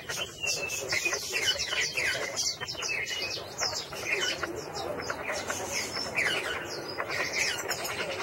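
Small caged songbird singing a continuous, rapid twittering song of quick high notes, many of them sliding downward.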